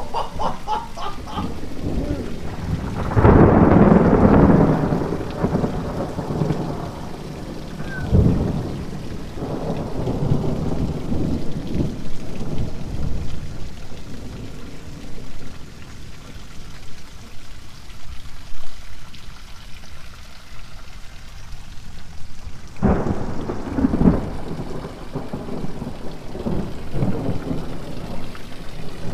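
Heavy rain falls steadily while thunder rumbles. A loud, long peal comes about three seconds in and lesser rumbles follow. Later a sudden crack sets off another run of rolling rumbles.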